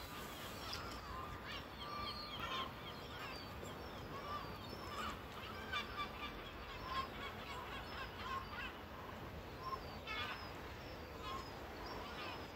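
Birds calling in many short, scattered chirps over a steady low background noise.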